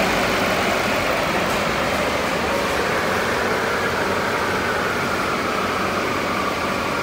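Modified LML Duramax 6.6 L V8 turbodiesel idling on a chassis dyno under a steady rush of noise, with a high whine slowly falling in pitch.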